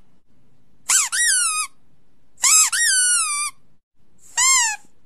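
Puppy whimpering: three short, high-pitched whines, each rising then falling in pitch, about a second apart. These are dog-trigger sounds played back for a dog to react to.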